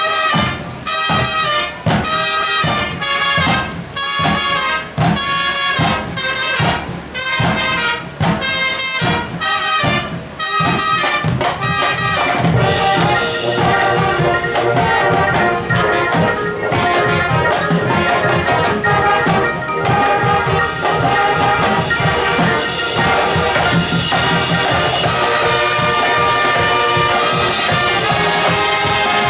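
High school marching band playing its field show, led by trumpets and trombones with drums. Short, punched chords with breaks between them for about the first twelve seconds, then long held full-band chords.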